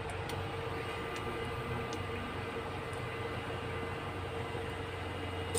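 Steady electrical hum with a constant mid-pitched tone from an electric cooktop heating oil in a stainless steel pot, over a faint hiss with a few soft ticks.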